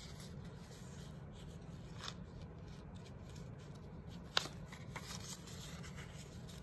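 Faint creasing and rustling of a sheet of paper being folded back and forth into an accordion and pressed flat on a table, with one sharper click a little past halfway, over a low steady hum.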